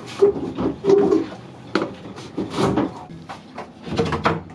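Wooden berth boards and panels in a sailboat's V-berth being knocked, shifted and lifted: a string of short hollow knocks and clatter, with two brief low hum-like sounds near the start and about a second in.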